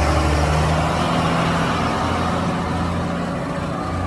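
A heavy vehicle engine running steadily with a deep, even hum.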